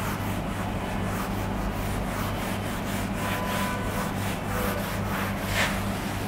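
Whiteboard eraser wiped across a whiteboard in repeated rubbing strokes, with a steady low electrical hum underneath.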